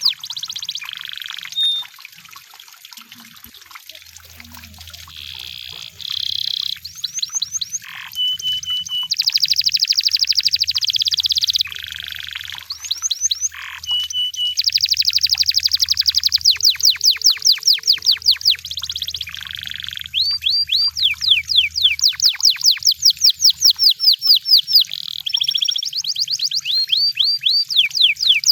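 A canary singing a long, continuous song of fast repeated-note trills and rolls, broken by buzzy stretches and a few short, steady whistled notes.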